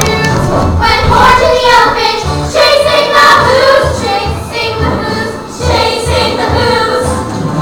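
A chorus of children singing a musical-theatre number together over accompaniment with a steady beat.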